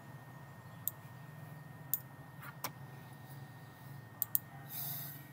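Computer mouse clicking: single clicks about a second apart, then a quick double-click near the end. A brief rustle follows, over a low background hum.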